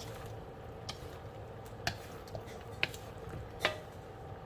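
A utensil clicking against a cooking pot about four times, spread across a few seconds, as chicken wings are stirred in adobo sauce, over a low steady hum.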